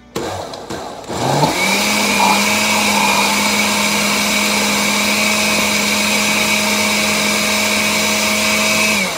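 Electric countertop blender motor blending a smoothie: it starts, speeds up to a higher steady whine about a second in, runs steadily, then winds down near the end as it is switched off.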